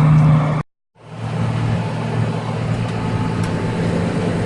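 Harvest machinery engine running with a steady hum. It cuts out abruptly less than a second in, and after a moment of silence fades back in, running steadily at a slightly lower pitch.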